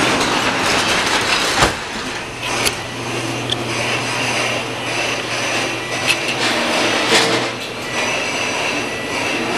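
Subaru Impreza WRX turbocharged flat-four engine idling with a steady hum and hiss, and a sharp click about a second and a half in. It is cold and running on a dead battery, which is why it struggles to stay running.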